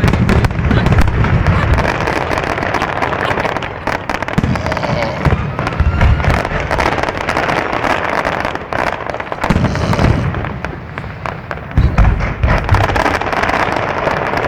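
Fireworks display heard through a phone microphone: several deep booms of shells bursting, spaced a few seconds apart, over a dense run of sharp crackles and pops.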